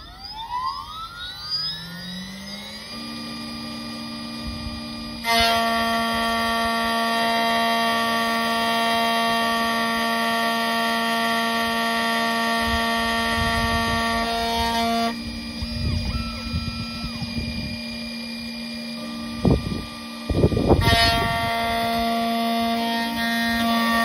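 Xhorse key-cutting machine's spindle motor spinning up with a rising whine, then running with a steady high whine while it mills a Ford Transit Custom flip-key blade. The whine stops about fifteen seconds in, a few thumps follow, and it starts again near the end.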